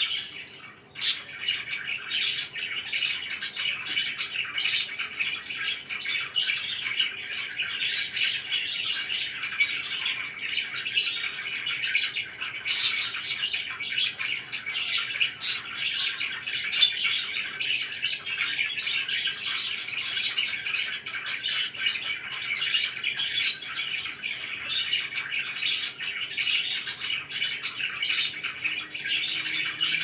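Budgerigars chattering and chirping continuously, with sharp squawks scattered throughout.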